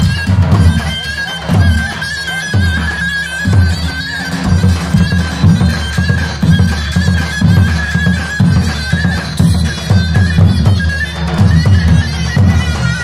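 Davul bass drum beating a dance rhythm under a loud, shrill, reedy zurna melody: live folk dance music for a line dance.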